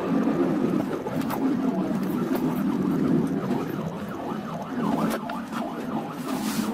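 Road and engine noise from inside a car in heavy traffic, with an ambulance siren wailing, clearest a little after the middle.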